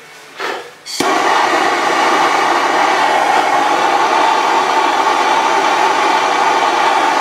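Handheld gas torch lit with a click about a second in, then its flame burning with a loud, steady hiss, used to melt the cut end of braided PET wire sleeving.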